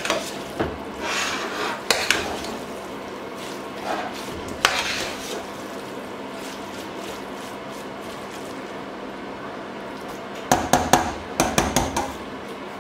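A metal spoon stirring and scraping a thick rice mixture in a stainless steel pot, clinking against the pot's sides. Scattered clinks and scrapes come in the first few seconds, then a quieter stretch, then a quick run of clinks and scrapes near the end.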